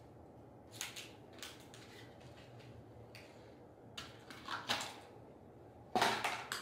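Hands handling lamp parts and a plastic wrapper during assembly: a few brief clicks and rustles, the loudest burst of rustling near the end.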